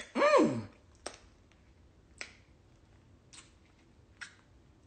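A short wordless vocal sound from a person, sliding down in pitch, followed by four faint, sharp clicks spaced about a second apart.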